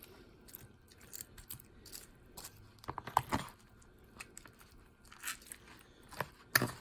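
A spoon stirring a thick, saucy chicken-and-ham mixture in a dish: soft scrapes and irregular small clicks of the utensil against the dish, with short flurries about three seconds in and near the end.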